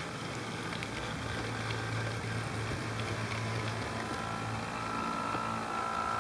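HO scale model diesel locomotives running past on their track: a steady electric-motor hum with light wheel ticks, and a higher thin whine that grows louder near the end.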